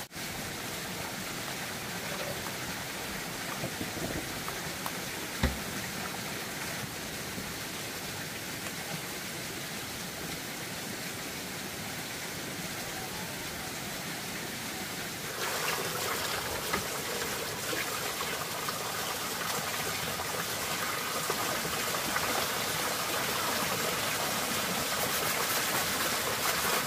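Steady rushing water noise that steps up louder about halfway through, with a single sharp knock about five seconds in.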